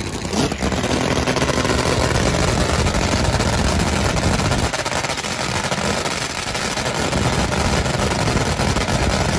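Top Fuel nitro drag motorcycle engines running loud and rough at the starting line. About halfway through, the deep low rumble drops away while the harsher, higher noise carries on.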